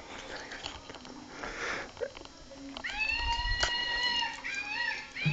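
Siberian husky whining in a long, high, drawn-out yowl about halfway through, then a shorter rising call near the end, with a plush toy in its mouth. Soft snuffling and rustling come before it.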